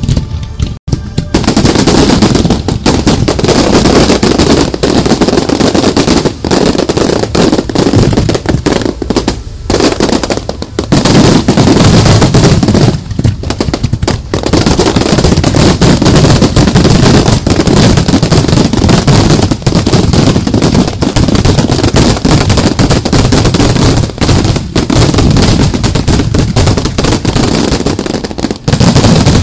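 Fireworks barrage heard from the launch site: mortars firing and shells bursting in rapid, continuous succession, very loud, with two brief lulls about a third and halfway through.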